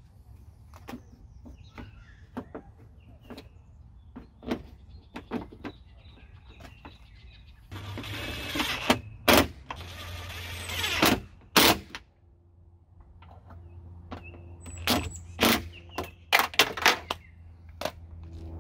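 DeWalt cordless impact driver driving fasteners into a car door's inner shell, in two bursts of about a second and a half each, a little past the middle. Sharp clicks and knocks of parts and tools being handled come before and after.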